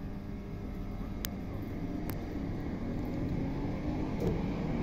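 ScotRail electric multiple unit pulling away from the platform: a steady rumble of wheels on rail, getting louder, with a motor whine that rises in pitch as it accelerates and a couple of sharp clicks.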